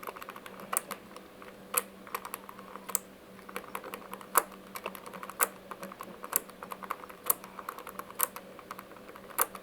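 Number wheels of a Master Lock combination padlock clicking as they are turned notch by notch, a sharper click about once a second with fainter ticks between, as each dial is felt for looseness to decode the combination.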